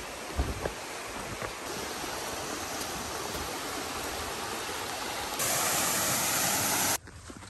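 Steady rushing noise, with a couple of low knocks about half a second in. About five and a half seconds in it turns louder and brighter, then cuts off abruptly near the end, leaving much quieter sound.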